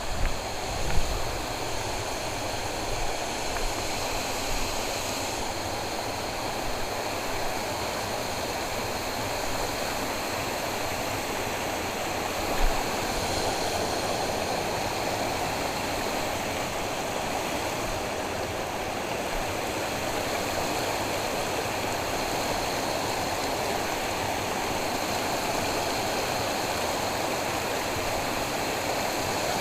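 Water flowing in a canal, a steady rushing hiss, with a short knock about a second in and another about thirteen seconds in.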